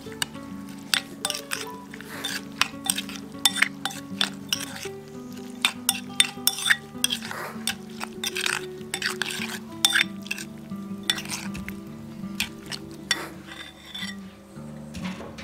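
A metal spoon stirring chopped green garnish in a ceramic bowl, clinking and scraping against the bowl many times, over background music.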